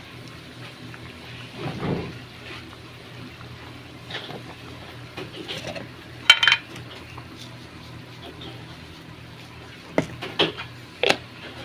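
Metal utensil clinking against a cooking pot of tinola: one loud ringing clink about six seconds in and three sharper knocks near the end, with faint liquid sounds between.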